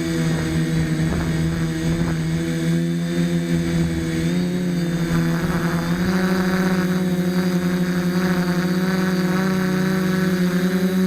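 DJI F450 FlameWheel quadcopter's motors and propellers buzzing steadily in flight, the pitch stepping up a little about four seconds in and again about six seconds in as the motors speed up.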